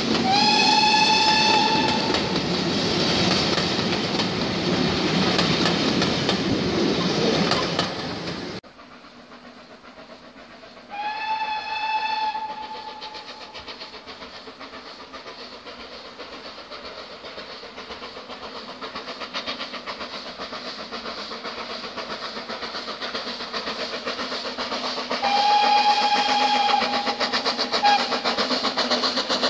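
Train of coaches rolling past close by, a steam whistle sounding once at the start. After an abrupt change, a BR Standard Class 4MT steam locomotive approaching from a distance, whistling twice, its exhaust beats growing louder as it nears.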